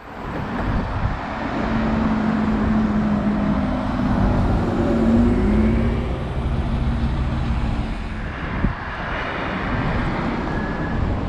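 Double-decker city bus driving past with a steady engine hum over road rumble. A single knock comes near nine seconds in, then the rush of a car passing.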